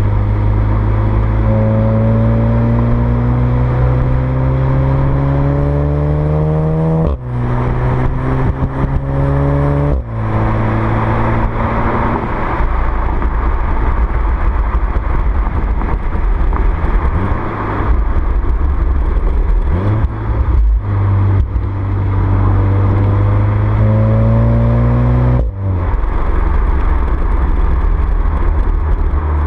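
VW Golf VII R's 2.0 TSI turbocharged four-cylinder accelerating hard: the engine note climbs steadily and drops sharply at each quick DSG upshift, three times.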